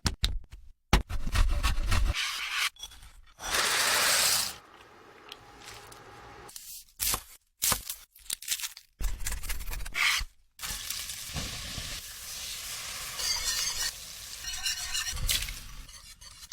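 Cooking sounds in short clips that start and stop abruptly: food sizzling in a hot pan, with a utensil stirring and scraping. There is a loud hiss about four seconds in.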